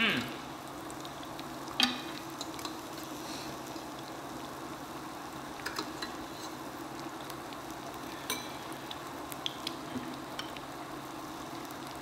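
Food sizzling on the grill plate of an electric hot pot and grill combo: a steady hiss, broken by occasional sharp clicks of chopsticks against the pan, the loudest about two seconds in. A brief falling sweep at the very start.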